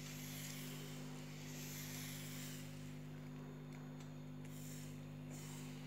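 Steady low hum with a faint hiss over it.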